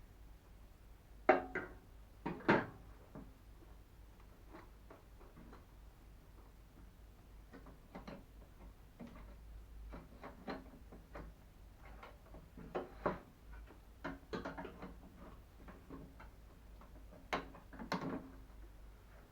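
Irregular clicks and knocks of microwave oven parts being handled and taken apart, with two sharper knocks near the start and more near the end.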